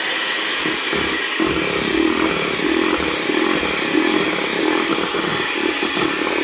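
Black+Decker electric hand mixer running steadily at speed, its beaters whisking cake batter in a stainless steel bowl.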